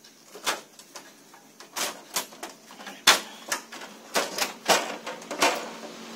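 Irregular sharp plastic-and-metal clicks and knocks, about nine in all and loudest about three seconds in, as the paper pickup roller unit of a Canon IR6000 copier is worked loose and slid out of its cassette bay.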